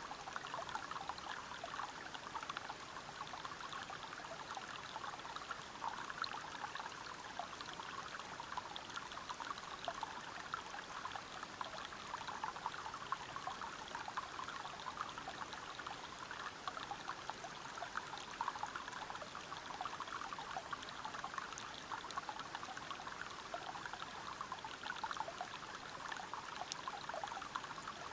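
Waterfall and river water flowing and splashing over rocks: a steady rush of water with dense fine splashing, unchanging throughout.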